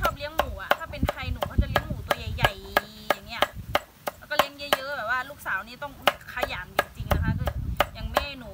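Knife chopping vegetables for pickling, in quick regular strokes about two or three a second.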